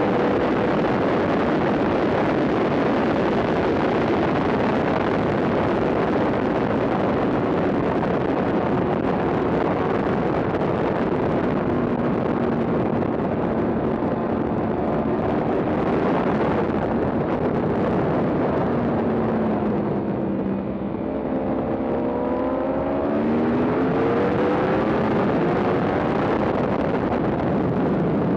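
Yamaha R1 sportbike's inline-four engine at racing speed, heard onboard under a heavy rush of wind. About twenty seconds in, the engine note falls as the rider backs off for a corner, then climbs again as he accelerates out.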